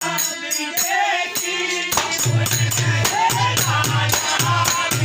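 Bhajan music: a voice singing over quick, even jingling percussion, with a steady low tone joining about two seconds in.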